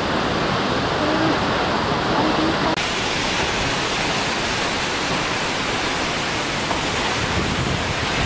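Waterfall: a steady rush of falling water. About three seconds in the sound cuts to a brighter rush with more hiss.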